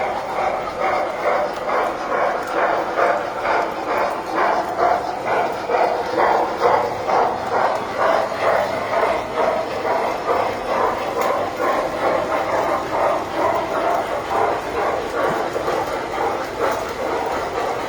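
Tinplate model train running on the layout, with a steady rhythmic beat about four times a second.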